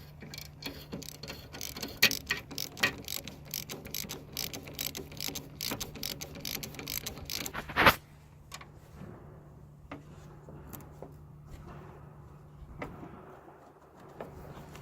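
Ratchet wrench clicking in quick runs while tightening down a leaking coolant fitting, with one sharper, louder click about halfway through, then only scattered clicks.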